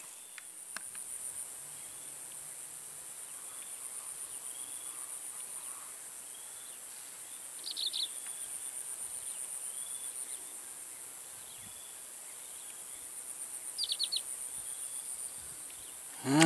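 Insects calling in a steady, high-pitched pulsing trill, with a few short, lower chirps breaking in about eight and fourteen seconds in.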